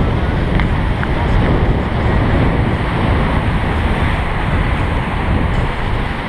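Wind blowing hard across the microphone, a loud low rumble, with surf breaking against rocks underneath; it eases a little near the end.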